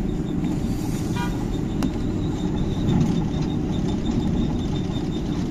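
Steady low rumble inside the cabin of the Düsseldorf Airport SkyTrain, a suspended monorail, as it travels along its track. A brief high chirp about a second in.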